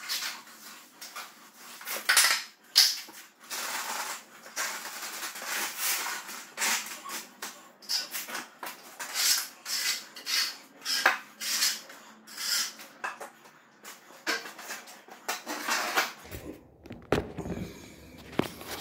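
Steel trowel scraping, scooping and spreading wet mortar over a concrete floor to level it: many irregular scrapes and clacks. Near the end the scraping stops and there is a low rumble of the camera being handled.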